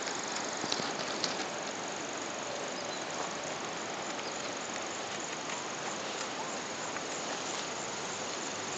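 Hooves of a ridden Percheron–Haflinger cross horse on a gravel lane: a few sharp clicks in the first second or so that fade as it moves away. After that, only a steady outdoor background hiss.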